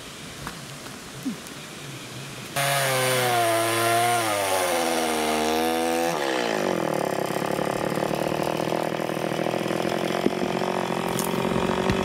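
Chainsaw running, coming in suddenly about two and a half seconds in; its pitch wavers and dips, then about six seconds in it rises and holds high and steady as the saw cuts into the top of an upright round-wood post.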